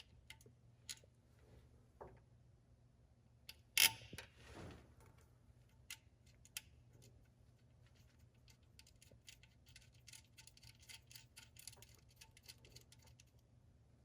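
Hand ratchet clicking as a 10 mm nut is run down onto the alternator's positive terminal stud, with scattered tool clicks and one louder metal clank about four seconds in, followed by a long run of quick ratchet clicks in the second half.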